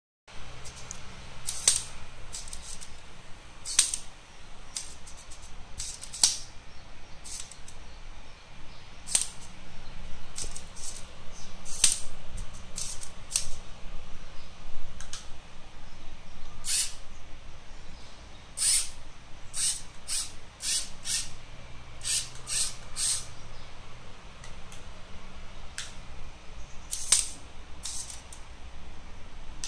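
Lego Mindstorms EV3 Track3r robot working its heavy hammer arm: irregular sharp clicks and knocks from its parts over a faint low motor hum.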